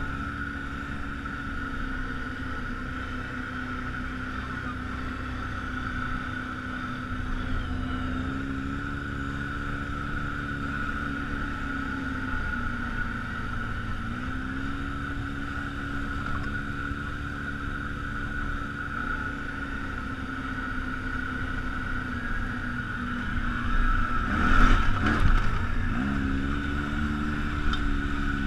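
ATV engine running along a trail at a steady pace, with a steady high whine alongside it. It eases off and picks up again a couple of times. About 24 seconds in comes a louder, rough stretch of noise as it slows and then speeds up again.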